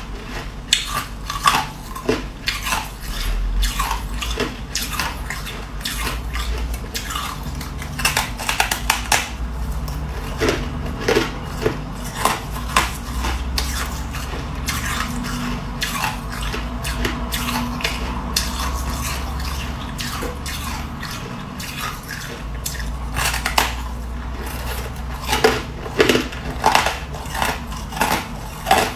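Chunks of freezer frost being bitten and chewed close to the microphone: irregular crisp crunching, with clusters of louder bites about a third of the way in and again near the end.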